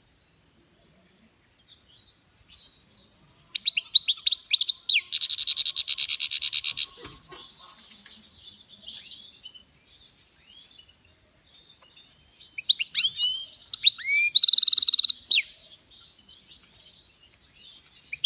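European goldfinch singing: a few faint chirps, then two loud bouts of rapid twittering song, each with a fast buzzing trill, linked by softer twittering.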